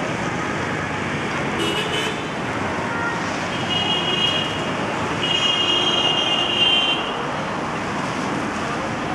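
Steady street traffic noise with a high-pitched vehicle horn tooting three times: briefly about a second and a half in, then longer near four seconds, and longest from about five to seven seconds.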